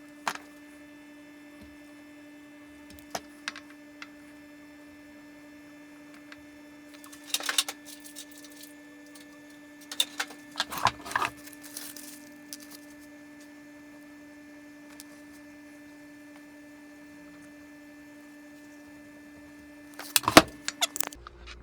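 Scattered clicks and rustles of hands wiring a replacement motor run capacitor into a bandsaw, the loudest cluster near the end. Under them runs a steady faint hum that stops shortly before the end.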